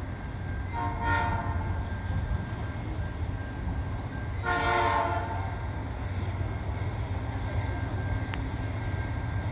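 CN freight locomotive's air horn sounding two blasts about three and a half seconds apart, each about a second long: a warning to trespassers on the railway bridge. A steady low rumble runs underneath.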